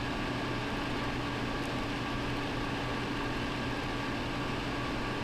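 Steady hum of a running household machine, even and unchanging, with a low drone and a few faint steady tones above it.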